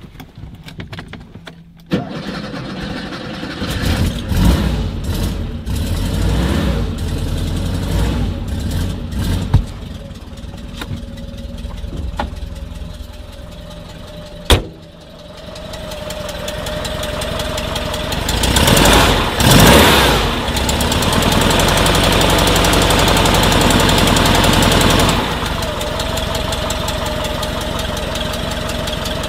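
1968 Porsche 912's air-cooled flat-four started from cold, catching about two seconds in and running unevenly with blips of the throttle. A sharp knock comes near the middle; later the engine revs up and back down, holds a fast idle, then drops to a lower, steady idle near the end.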